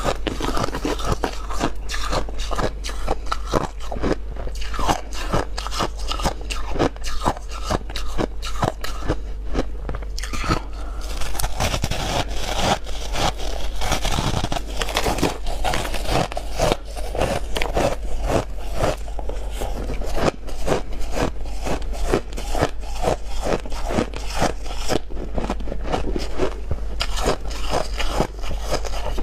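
Close-up biting and chewing of big chunks of freezer frost: a dense, continuous run of crisp crunches.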